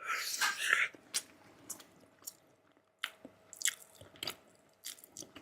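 Close-up eating sounds of someone biting into and chewing a soft-boiled marinated egg. A louder wet bite comes in the first second, followed by scattered short smacking clicks of chewing.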